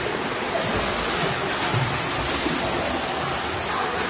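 Several swimmers splashing and kicking through pool water, a steady, continuous wash of splashing.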